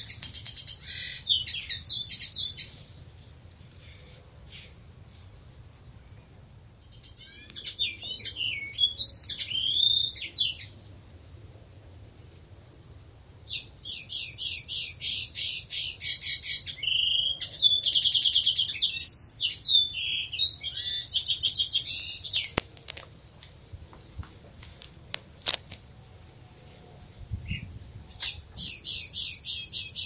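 European robin singing: high, varied warbling phrases a few seconds long, separated by short pauses, with a longer run of fast repeated notes in the middle.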